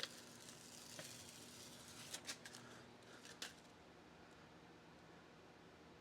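Near silence with a few faint crackles and ticks, spread over the first few seconds: the release-paper backing being peeled off a sheet of Kilmat butyl sound-deadening mat.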